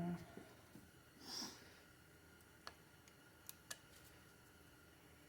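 Near silence: a short breath about a second in, then a few faint light clicks.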